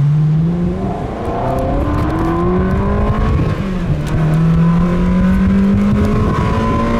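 Ferrari 360 limousine's V8 engine pulling hard under acceleration, heard from inside the cabin. Its pitch climbs steadily and drops briefly about a second in and again about four seconds in as it changes gear.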